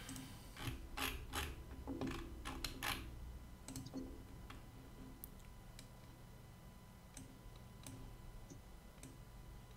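Faint clicks of a computer mouse and keyboard, several close together in the first three seconds, then a few scattered ones, over a low steady hum.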